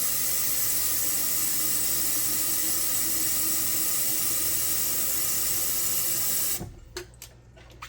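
Water running from a tap into an electric kettle, a steady loud hiss that cuts off abruptly near the end.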